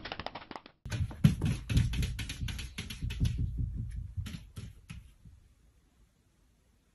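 A cat's paws batting at a standing mirror: a fast, irregular run of taps and soft thumps that dies away about five seconds in.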